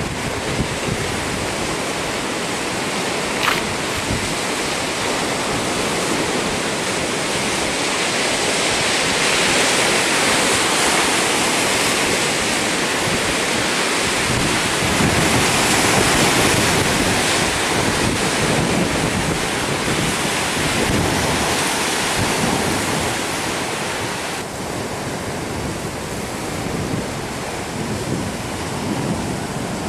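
Wind blowing across the camcorder microphone over the steady wash of surf on the shore below, easing a little near the end.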